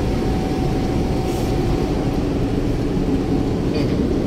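Steady road and engine rumble of a diesel car driving along the highway.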